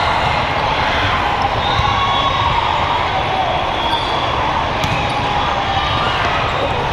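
Steady din of a big convention hall full of volleyball courts: many voices mixed with volleyballs being hit and bouncing.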